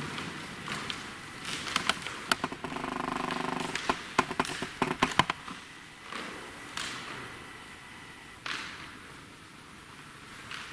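Footsteps and knocks on a wooden floor in a quiet church, with a short creak among them, then stillness broken only by soft rustles.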